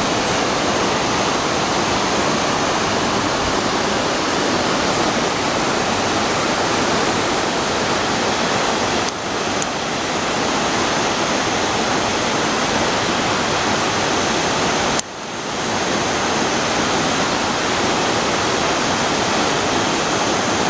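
Waterfall: a steady, loud rush of falling water, with a brief drop in level about nine seconds in and a click followed by a short dip about fifteen seconds in.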